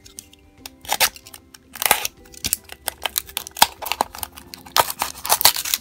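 Small cardboard blind box being handled and opened by hand: an irregular run of scrapes, taps and light crinkles as the flaps are worked open and the contents pulled out.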